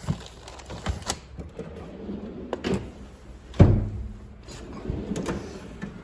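Clunks and knocks from the metal drawers of a Mac Tools Macsimizer tool cart being slid and handled, a string of separate thuds with the loudest about three and a half seconds in.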